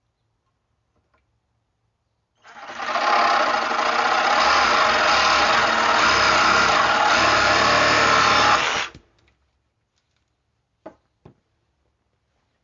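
Yunirvana 6.0-amp corded reciprocating saw running for about six seconds: it starts about two seconds in, runs steadily and stops abruptly. Two light clicks follow near the end.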